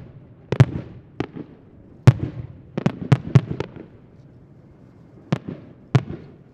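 Aerial fireworks shells bursting: about nine sharp bangs in irregular succession, the loudest about two seconds in, with a lull of over a second before the last two.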